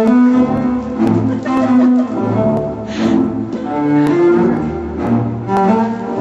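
Music: low bowed strings playing a slow line of held notes, one after another.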